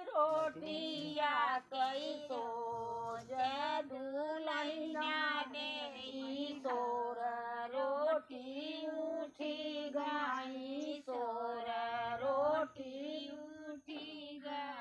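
Women's voices singing a sohar, the village folk song sung for a childbirth, in a wavering melody broken into short phrases with brief pauses for breath.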